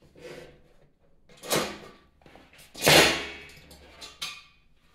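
Metal bed-frame rail handled during assembly: a knock about a second and a half in, then a louder clatter about three seconds in that fades over about a second.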